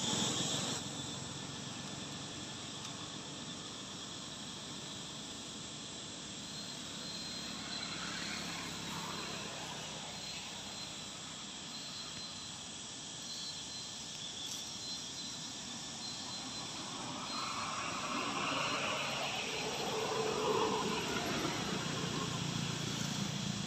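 Steady outdoor ambience with insects buzzing. Louder, indistinct sounds join about three quarters of the way through.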